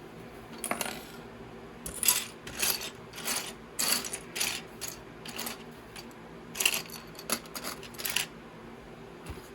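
Small plastic LEGO pieces clattering and clicking as they are handled and sorted, in a series of short rattles.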